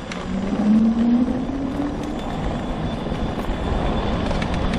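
Electric drive motors of a homemade all-wheel-drive off-road mobility scooter under way, their whine rising in pitch over the first two seconds or so as it picks up speed, over a steady rumble of the ride.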